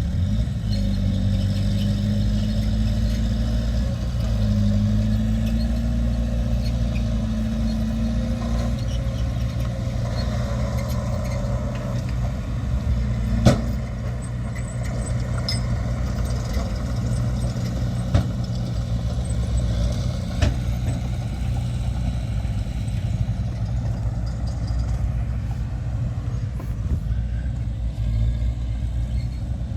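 Heavy diesel earthmoving machinery running, its engine pitch rising and falling under changing load for the first several seconds, then running steady. A sharp metallic knock comes about a third of the way in, with two lighter knocks a few seconds later.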